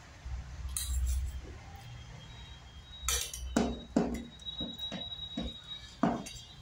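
A metal spoon clinking against a stainless steel curry bowl and plate: a series of sharp clinks, most of them in the second half, some leaving a short metallic ring.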